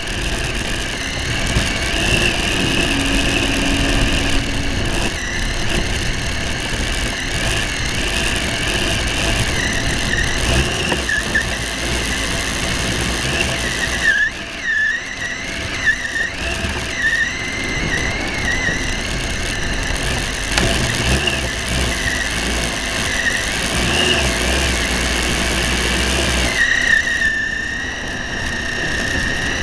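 Remote-control plane's motor and propeller whining, the pitch wavering up and down with the throttle and dipping briefly twice, with wind rumbling on the microphone.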